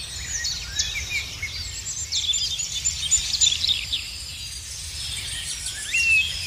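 Many birds chirping and calling in dense overlapping short notes over a low steady rumble. A clearer rising whistled note comes near the end.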